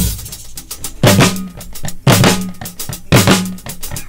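Live African percussion groove from a drum kit and talking drums, with a heavy accented hit about once a second and a low note ringing after each.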